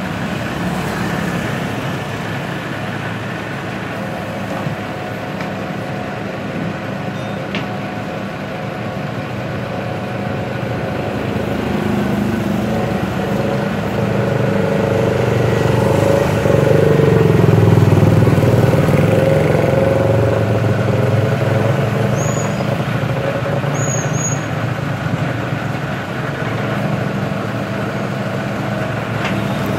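Truck engine running steadily while the crane works. Around the middle a vehicle passes close by, getting louder and then fading, with its pitch dropping as it goes.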